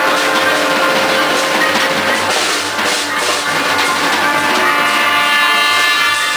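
Live Latin jazz band playing: trumpets hold long notes over drum kit and percussion. About halfway through the horns drop back under a run of sharp drum hits, then long held notes return.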